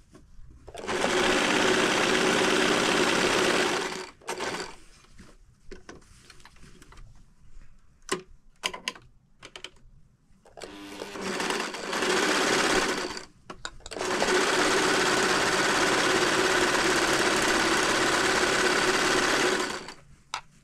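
Electric sewing machine stitching fabric in three runs: about three seconds, then a shorter burst, then about six seconds. Between the runs there are a few sharp clicks as the cloth is handled and repositioned.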